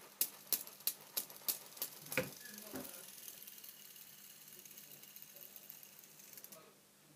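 Fidget spinner flicked with a finger, a sharp click about three times a second, then spun up with a harder flick and left whirring with a steady high hiss for about four seconds until it is stopped suddenly.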